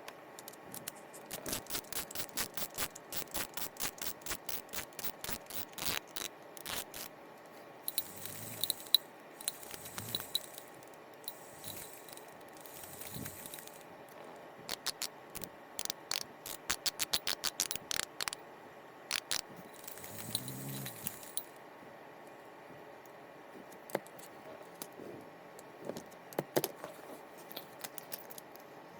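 Close-up clicking, rattling and scraping of small metal fishing-reel parts being handled and worked by hand, in quick runs of sharp clicks with short pauses between.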